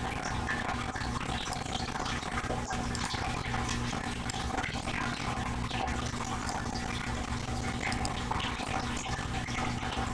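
Steady background hiss with a low, even hum and a few faint ticks.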